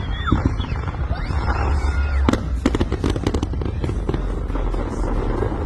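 Fireworks display going off: a rapid run of bangs and crackles over a continuous low rumble, thickest about two to three seconds in.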